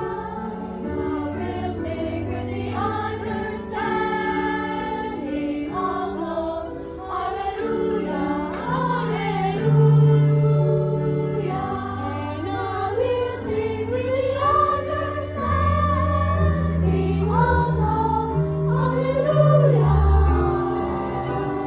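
Church choir singing, the voices moving above steady held low notes.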